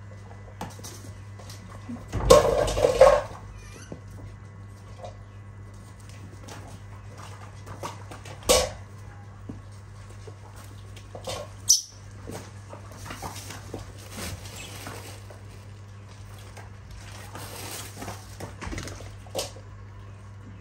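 Baby macaques giving a few short squeaks and cries, the longest and loudest about two seconds in, over a steady low hum.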